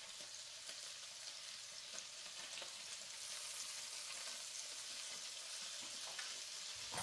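Shallots sizzling in a skillet of olive oil, butter, white wine and lemon juice: a soft, steady sizzle with a few small crackles.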